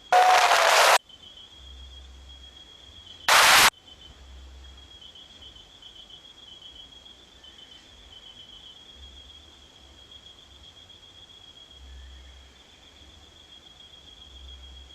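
Crickets chirping in a steady high-pitched pulsing trill. Two short, loud bursts of hiss cut in during the first four seconds.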